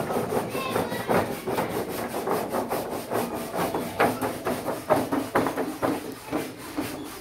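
A painted paper scroll (patachitra) backed with cloth being handled and rolled up, its paper rustling and crackling in many irregular strokes.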